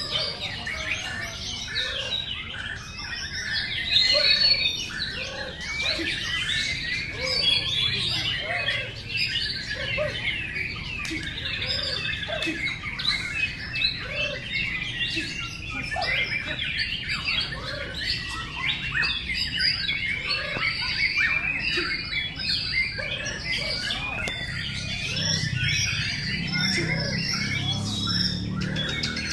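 Many caged white-rumped shamas singing at once: a dense, continuous tangle of overlapping high whistles, trills and chatter.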